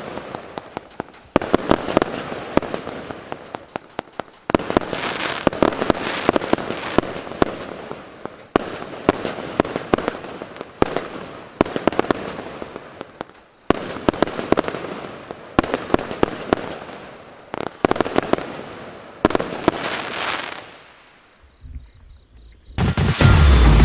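Cube Fireworks Zeus 105-shot compound barrage firing: volleys of sharp reports every second or two, each followed by a fading hiss and crackle of bursting effects. The barrage dies away about 21 seconds in, and loud electronic music starts about a second before the end.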